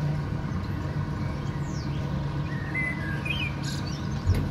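Steady low hum and rumble of the Würmling Express ride car running along its track, with birds chirping briefly about halfway through and a single thump near the end.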